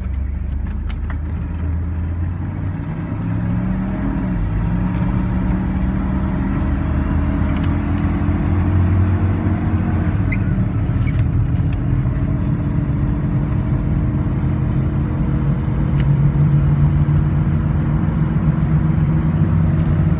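Chevrolet Silverado pickup engine and exhaust running, slowly getting louder, with a few small shifts in engine speed. The leak at the exhaust manifold collector has just been sealed with epoxy, and the only exhaust sound the owner hears is the mufflers, with no leak ticking up front.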